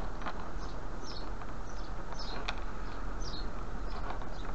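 A bird chirping over and over in the background, short high downward notes, with a few light metallic clicks of a steel split key ring and small chain being fitted together by hand, over a steady low hum and hiss.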